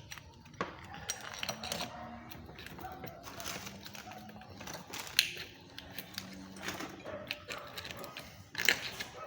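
Scattered light metallic clicks and taps of hand work on a CV joint and halfshaft, as its bolts are fitted, over faint steady background sound.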